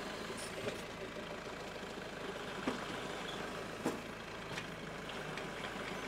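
Kubota tractor's diesel engine idling steadily, with a few short sharp clicks and knocks over it, two louder ones about a second apart midway.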